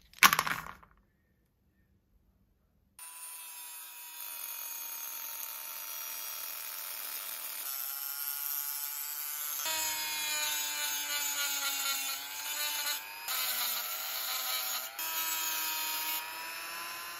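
A brief sharp sound at the very start, then from about three seconds in a handheld rotary tool with a thin cutting disc running with a steady whine as it cuts the shell of a crab claw. It gets louder from about ten seconds in, and its pitch dips briefly a few times as the disc bites into the shell.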